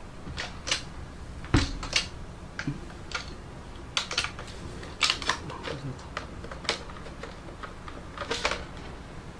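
Irregular plastic clicks, taps and knocks from handling the parts of a Dyson V6 cordless vacuum as its filters and dust bin are dealt with.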